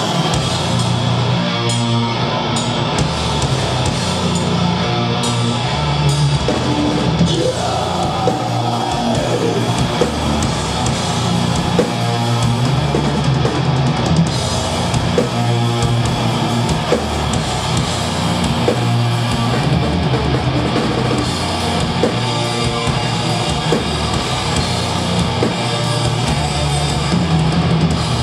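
Death metal band playing live, with electric guitars, bass and a drum kit, heard through the venue's PA at full volume.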